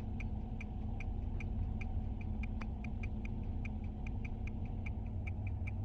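Rapid, even mechanical ticking, about five ticks a second, over a steady low rumble.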